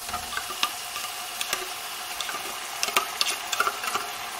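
Beef strips with bell peppers and onions sizzling on a hot cast-iron grill platter: a steady hiss with scattered crackles and pops.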